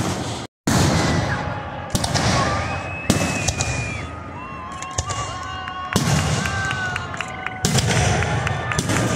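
Aerial firework shells bursting in a series of booms, about one every one to two seconds, with the sharp crackling of glitter effects between the bursts. The sound cuts out completely for a moment about half a second in.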